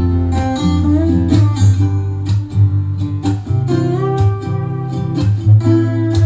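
Song without vocals: plucked and strummed guitar over a bass line, with a steady drum beat.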